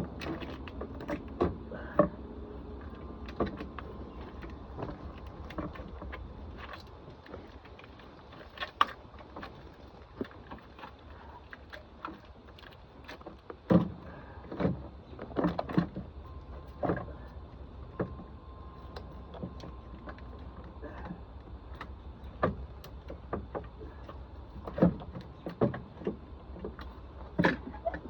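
Irregular knocks, clunks and clicks of metal parts being handled and worked into place in a car's front compartment, over a steady low hum.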